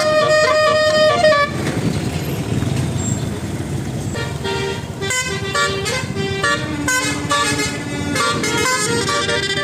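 Bus telolet horn holding a multi-tone chord that cuts off about a second and a half in, followed by engine and traffic noise. From about four seconds in it plays a tune of short stepping notes.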